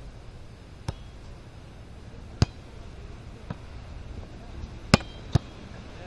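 A volleyball being struck by players' hands and forearms during a rally: five sharp slaps one to one and a half seconds apart, the loudest two in quick succession about five seconds in.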